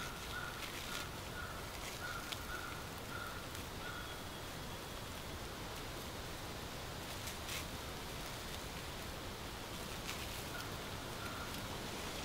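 Steady outdoor background noise, with a bird calling a quick run of short notes at one pitch, about two a second, over the first few seconds and briefly again near the end. A few sharp clicks stand out.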